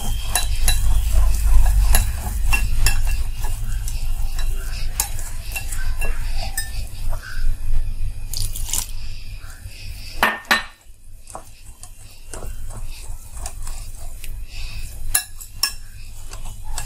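Wire whisk beating gram flour (besan) and water into batter in a glass bowl, the wires clicking and scraping against the bowl in a quick irregular run, with a brief pause about ten seconds in.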